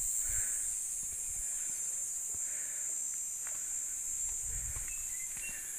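Steady, high-pitched insect chorus, with soft low rumbles of wind on the microphone near the start and about four and a half seconds in.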